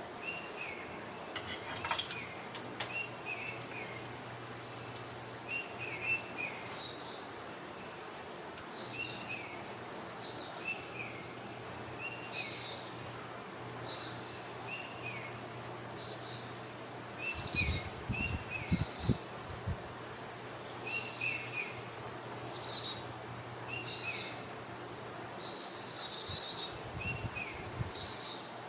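Birds chirping in short, repeating phrases over a faint steady hum, with a few dull low thumps about two-thirds of the way through and again near the end.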